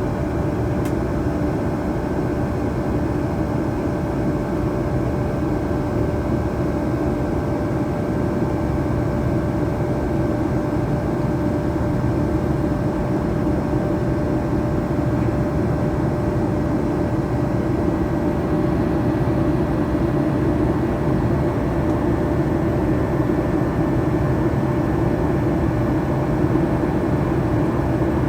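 Cabin noise inside a Boeing 737-800 heard from the front row: a steady rushing noise with a constant hum from its CFM56 jet engines, holding one pitch throughout.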